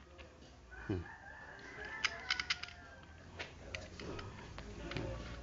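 Small hardware being handled: a quick cluster of sharp metal clicks about two seconds in and a few more later, the nuts and washers of a homemade PWM assembly. Behind them a faint, drawn-out call with a slight rise and fall in pitch, like a distant rooster crowing.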